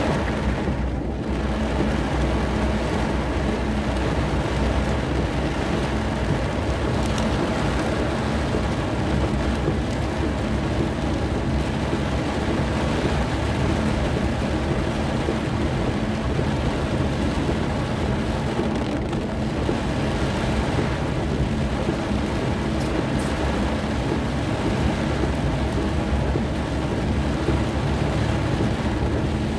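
Very heavy rain drumming on a car's roof and windscreen, heard from inside the car: a loud, steady rush with a deep rumble underneath.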